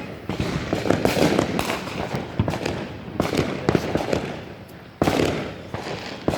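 Fireworks going off in rapid succession: a dense, continuous string of crackling pops and bangs, with a sudden loud new burst about five seconds in.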